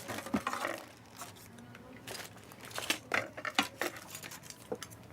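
Tableware clicking and clinking while people eat: a scattered series of sharp taps, busiest at the start and again about three seconds in.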